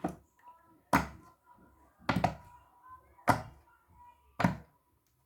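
Silicone pop-it fidget toy being pressed for ASMR: sharp, short pops about once a second, five in all, one of them a quick double.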